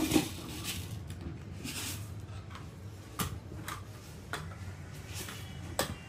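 Light plastic clicks and knocks, irregular and a second or so apart, from a small plastic toy car and a plastic bowl being handled and set down against each other; the sharpest knock comes right at the start.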